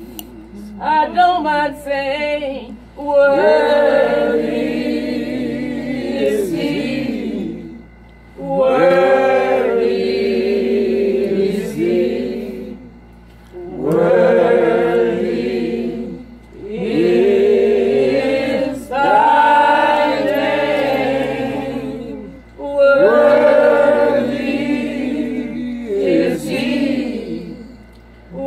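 A church congregation or choir singing a gospel hymn, several voices together, in phrases a few seconds long with short breaks between them.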